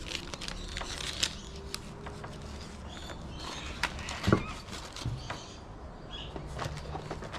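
Scattered clicks, rattles and rustles of the kit's tools and packaging being handled, with a sharper knock about four seconds in.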